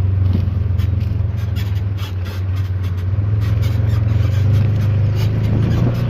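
Motor vehicle engine running with a steady low hum at slow, even speed, with frequent light clicks and rattles over it.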